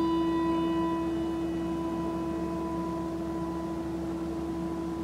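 A single bell stroke ringing on: a steady, clear tone with higher overtones that slowly fades. It is a memorial toll sounded once for each name of the dead.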